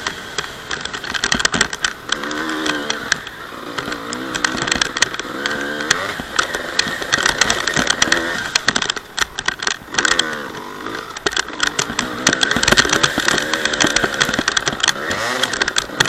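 Two-stroke Honda CR250 dirt bike engine being ridden hard, its pitch rising and falling again and again as the throttle is opened and shut, with many short knocks and crackles over it.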